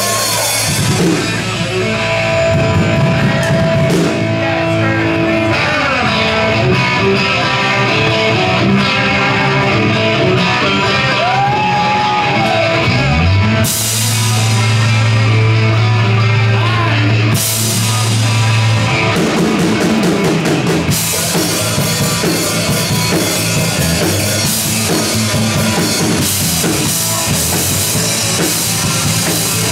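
Live rock band playing loud: distorted electric guitars over bass and a drum kit, the lead guitar bending and holding notes. About halfway the band hits harder, with a long held low note and crashing cymbals, and the drums and cymbals stay busy after that.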